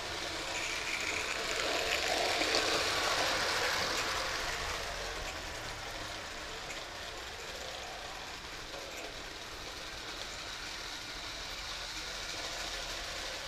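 Bassett-Lowke Enterprise live-steam O-gauge locomotive running with tinplate coaches on tin track: a steady rushing noise that swells a second or two in and then eases off.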